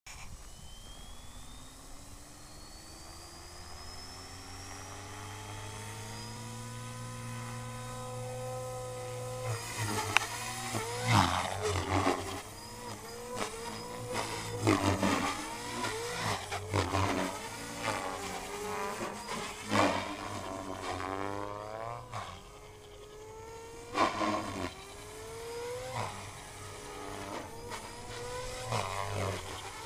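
Electric MSH Mini Protos RC helicopter spooling up: the motor and rotor whine rises steadily in pitch for about nine seconds. Then, in flight, the pitch wavers up and down with loud, repeated blade whooshes as it is flown through hard manoeuvres.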